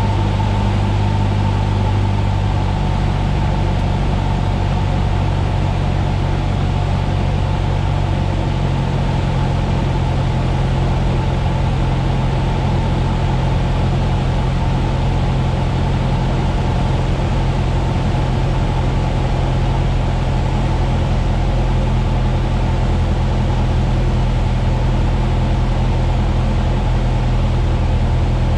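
Cessna 172's piston engine and propeller droning steadily, heard inside the cabin on final approach to landing, with a steady hiss of air over the airframe. The engine note shifts in pitch a couple of times.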